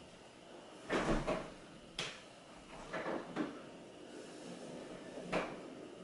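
Kitchen clatter: a handful of short knocks and bangs, a sharp click about two seconds in, a cluster around three seconds, and one more near the end.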